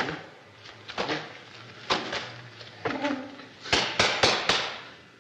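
Boots stamping on hard ground in a drill: one sharp stamp about two seconds in, then a quick run of four or five stamps in under a second near the end, with short shouted commands between them.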